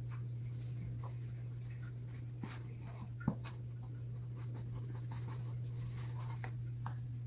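Knife cutting through the crisp meringue crust of a pavlova: small scattered crackles and scrapes, with one sharper click about three seconds in, over a steady low hum.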